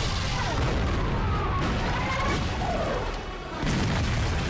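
Dense battle-scene sound effects: booms and crashes of gunfire and impacts in a noisy din. The din drops briefly a little past three seconds in, then comes back loud at once.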